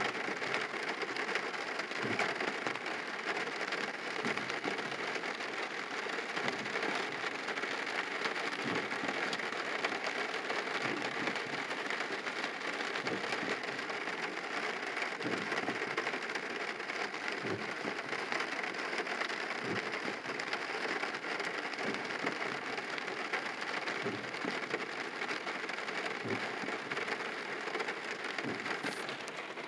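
Rain falling on a car's roof and windshield, heard from inside the car: a steady hiss with scattered soft knocks of heavier drops.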